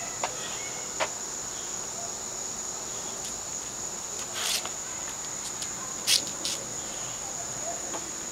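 Steady high-pitched buzz of insects, with a few short scuffs and knocks from a dog shaking and dropping a plush toy on concrete. The loudest knock comes about six seconds in.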